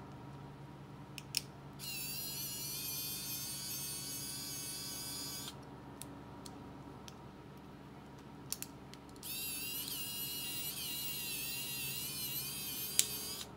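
Xiaomi Mijia electric precision screwdriver running twice for about four seconds each, a high-pitched motor-and-gearbox whine as the bit turns small screws, its pitch wavering in the second run. A few light clicks come just before each run and near the end.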